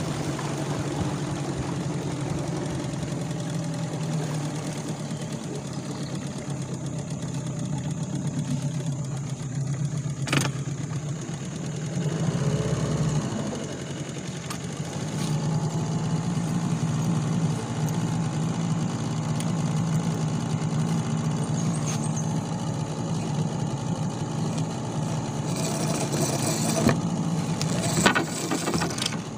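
Tohatsu 9.8 outboard motor running steadily, pushing the small boat along, its note dipping briefly about twelve seconds in. A few sharp knocks near the end.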